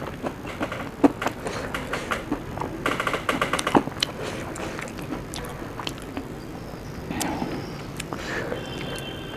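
A person chewing food close to the microphone, with many quick crisp clicks and crunches that are densest in the first four seconds and grow sparser and softer after that.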